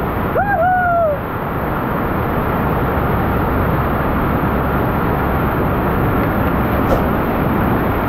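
Steady rushing of a waterfall. Within the first second, a child's high voice calls out briefly over it.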